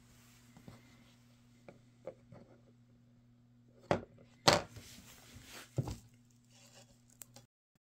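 Three sharp knocks on a tabletop in the middle, the second the loudest, as a hard disc is lifted and set back down, with a few faint clicks before them. Under it all runs a steady low electrical hum that cuts off near the end.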